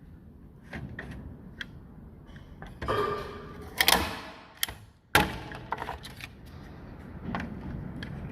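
Heavy-duty manual staple gun firing twice: two sharp snaps a little over a second apart, about four and five seconds in. A scraping rustle comes just before the first snap, and lighter handling clicks are scattered around both.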